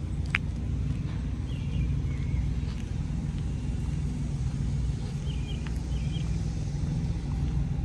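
Semi-truck's diesel engine running steadily with a low hum, heard from inside the cab. A single sharp click sounds about a third of a second in.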